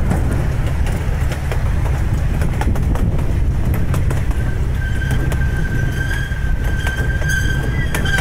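Miniature park train rolling along its track, a steady low rumble with scattered clicks. About halfway through a steady high-pitched tone joins and holds.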